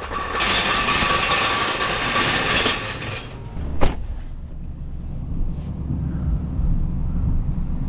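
A steady hiss with a whine in it lasts about three seconds, then a sharp click; a truck engine's low idle rumbles underneath.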